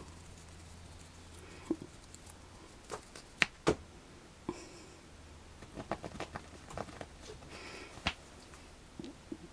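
Domestic goose gosling pecking and nibbling at a knitted wool sock: scattered sharp clicks and taps of its bill, coming in irregular clusters.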